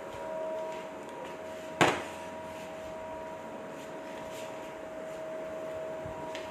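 A single sharp knock, the loudest thing here, about two seconds in, over a steady high-pitched electrical hum.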